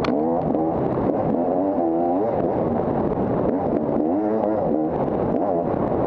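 250cc dirt bike engine revving up and down over and over, its pitch climbing and dropping every second or so as the throttle is worked, with scattered light clicks and knocks.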